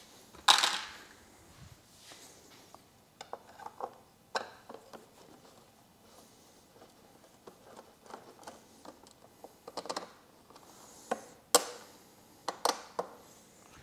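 Hand tools and screws clinking as a driver backs the screws out of a motorcycle fairing's speedometer mounts. There is a loud clatter of tools about half a second in, then scattered small clicks and taps.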